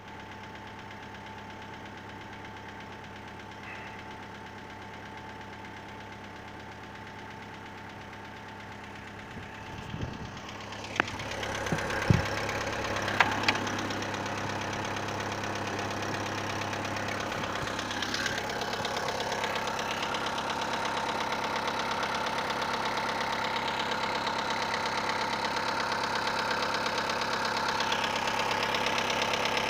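Engine idling with a knock, which the title names as the sound being shown. A few sharp clacks come around ten to thirteen seconds in, after which the engine is louder.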